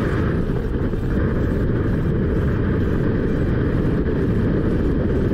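Freefall airstream rushing over a handheld camera's microphone as a steady, unbroken roar of wind noise.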